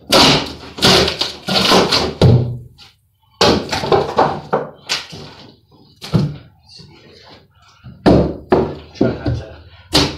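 Wooden wall framing and plywood being struck and knocked apart in demolition: irregular heavy thunks and knocks of wood, coming in clusters with short pauses.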